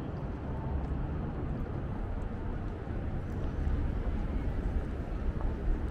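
Outdoor city ambience: a steady low rumble of distant traffic.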